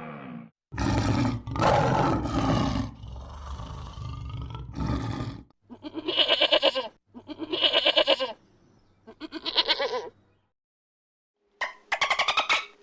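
Animal calls: a rough, roar-like call lasting several seconds, then three separate pulsing calls of about a second each, and another pulsing call near the end.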